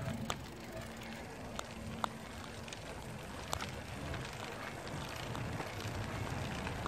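Wind on the microphone and a steady rolling rumble while riding along a tarmac footpath, with scattered sharp clicks and rattles.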